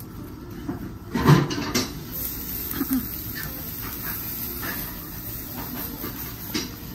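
Food sizzling on a hot griddle, with a short, louder voice-like sound about a second in.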